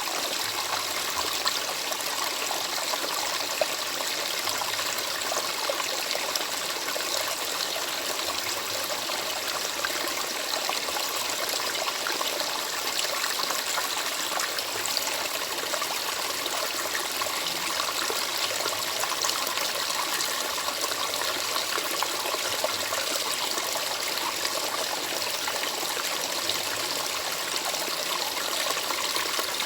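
Water running steadily in a stream, an even splashing rush with small trickling flickers.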